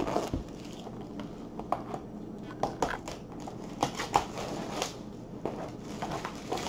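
A long cardboard box being handled and opened by hand: scattered scrapes, taps and rustles as the flap is worked open and the box is lifted and tipped to slide its contents out.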